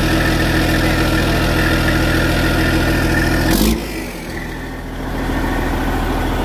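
Detroit Diesel Series 60 diesel engine in a Freightliner Classic XL semi, running loud and steady just after starting. Its exhaust is open at a bare elbow pipe with the muffler off. A short burst of noise a little past halfway is followed by a second or so where it sounds quieter.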